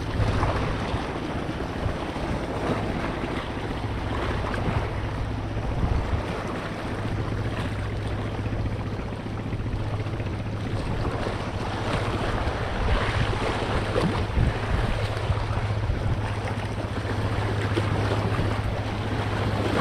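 Wind buffeting the microphone with a low rumble, over ocean waves washing steadily against the shore.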